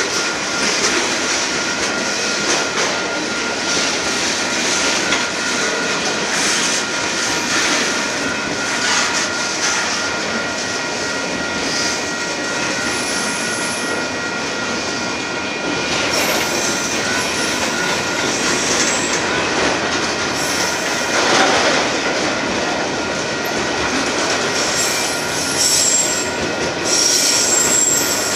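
Union Pacific manifest freight train's boxcars and autorack cars rolling steadily past on steel rails, with a thin, steady squeal from the wheels over the rolling noise.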